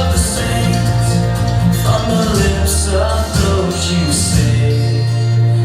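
Worship-band music playing with a steady beat: bass, drums with cymbal splashes about once a second, and guitar, with some singing voices over it.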